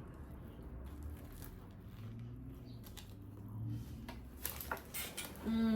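Soft eating and mouth sounds, with a few sharp clicks and smacks in the second half and a low steady hum for about two seconds in the middle.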